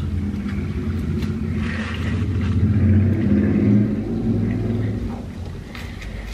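A man's long, low 'mmm' of enjoyment, hummed with his mouth full of food while he chews, with a few faint wet mouth clicks. The hum swells about three seconds in and fades near the end.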